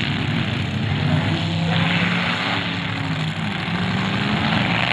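Several demolition derby cars' engines revving hard together, their pitches rising and falling against each other, over a steady rushing noise.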